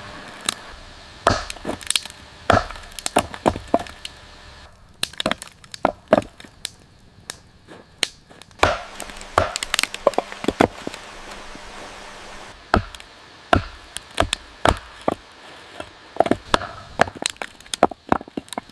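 Wood being chopped: a run of sharp, irregular blows, one or two a second with some quicker double hits.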